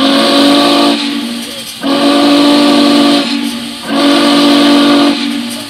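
Norfolk & Western J-class No. 611 steam locomotive's chime whistle blowing three blasts, each a little over a second long, with several pitches sounding together.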